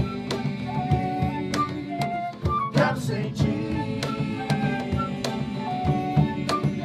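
Small acoustic band playing a song: a flute carries the melody in held notes over strummed acoustic guitars, while a drum struck with wooden sticks keeps a steady beat.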